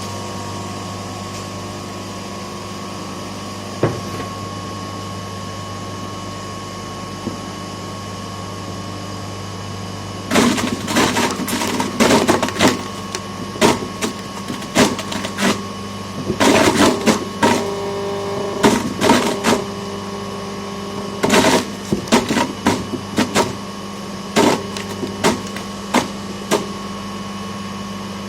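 Electric motor of a homemade apple crusher switches on suddenly and runs with a steady hum. From about ten seconds in, irregular loud bursts of grinding sound over it as material goes through the crusher.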